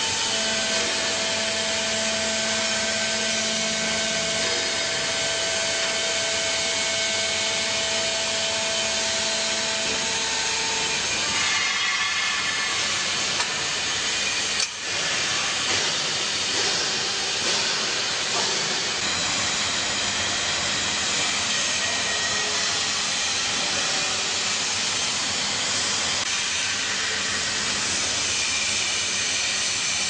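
Vertical hydraulic baler's power unit, an electric motor driving a hydraulic pump, running with a steady, even noise. Faint held tones sit over it in the first third, and the sound dips briefly about halfway through.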